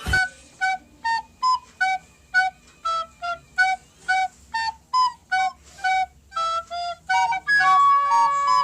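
A high wind-instrument tune from a meme sound clip that starts abruptly: quick, separate notes at about two or three a second, running into longer held notes near the end.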